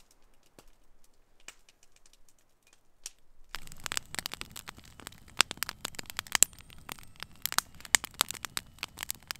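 Campfire of wet sticks crackling as it catches. There are a few faint scattered snaps at first, then from about three and a half seconds in a louder, denser run of irregular pops and crackles.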